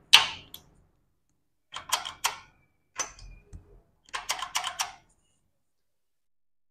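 Small metal parts clicking and clinking against a motorcycle engine's crankcase during assembly: one sharp click, then three short clusters of clicks.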